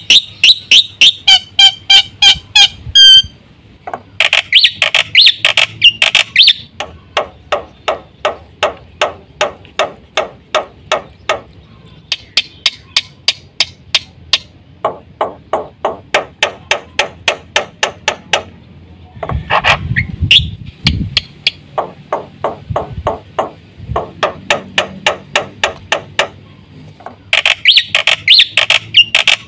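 Black-winged myna (jalak putih) calling loudly: long runs of sharp, repeated notes at about three a second, broken by bursts of harsh chattering song near the start, a few seconds in, around the middle and near the end.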